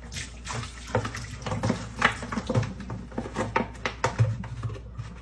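Plastic milk jug, softened with hot water, being rolled up by hand: the plastic crinkles and crackles in many irregular small snaps, with water splashing.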